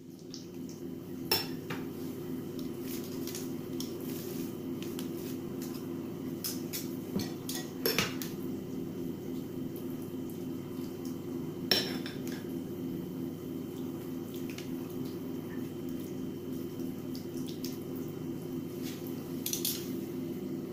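A metal spoon clinking and scraping against a glass bowl as a chopped-vegetable filling is scooped out and spooned into roasted eggplant halves, with a few sharper clinks, over a steady low hum.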